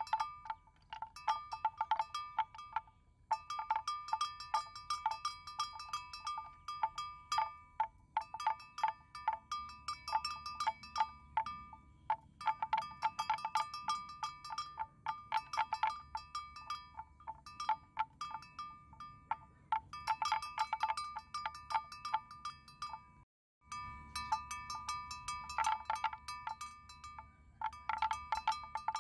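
Metal bells worn by water buffalo clanking irregularly as the animals walk and graze, each clank ringing at the same pitch. The sound cuts out for an instant about two-thirds of the way through.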